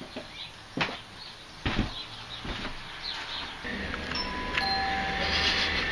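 Doorbell ringing as its wall-mounted push button is pressed: a sustained ring of about two seconds that starts a little after halfway. Two short thuds come before it.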